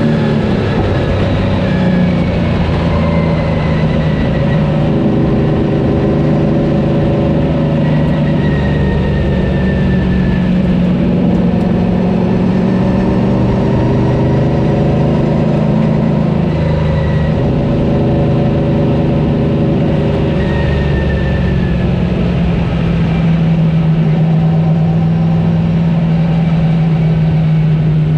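Stock car's racing engine heard from inside the cockpit at race speed. Its note rises and drops in swells every few seconds as the car goes on and off the throttle around the oval, over steady wind and road noise.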